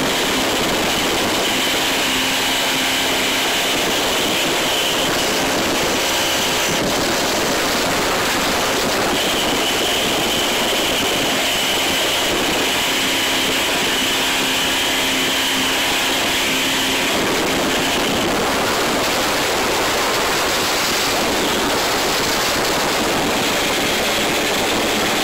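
26 ft American Offshore powerboat running at high speed: a steady, loud rush of engine drone, hull and spray noise, heavy with wind buffeting on the microphone, with a faint engine tone that fades in and out.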